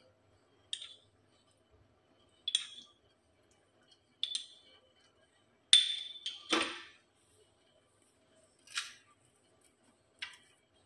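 Steel spoon clinking against a cup and a steel mixing bowl while milk is spooned in: about seven separate clinks a second or two apart, the loudest about six and a half seconds in.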